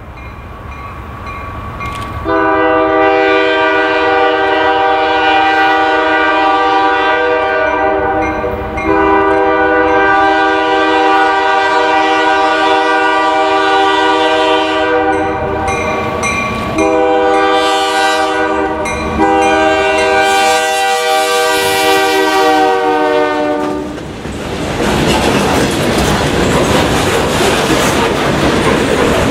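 Diesel freight locomotive's multi-chime air horn sounding two long blasts, a short one and a final long one, the grade-crossing signal, as the train approaches. Near the end the horn stops and the train passes close by with loud engine and wheel noise.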